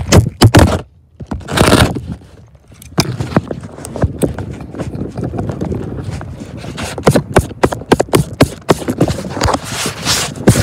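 Footsteps crunching and scuffing on gravel and dirt, with many irregular sharp knocks and scrapes, and a longer rushing scuff about a second and a half in and again near the end.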